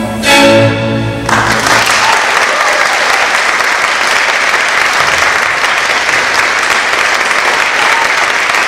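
Orchestral ballet music ends on a final chord about a second in, and the audience at once breaks into steady applause.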